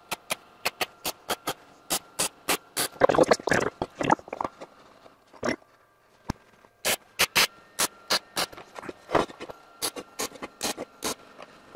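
Electric welder laying quick tack welds on steel, fixing a ring onto a cylinder mount's pipe housing: a string of short, sharp crackling bursts, several a second, in two runs with a brief pause between.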